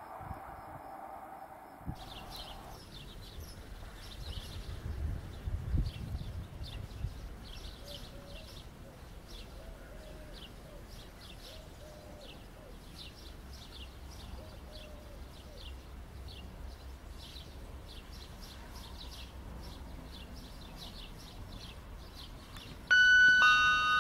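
Birds chirping in quick, short, repeated calls over a faint low outdoor hum. About a second before the end, a railway station public-address chime sounds: two steady tones, the second lower.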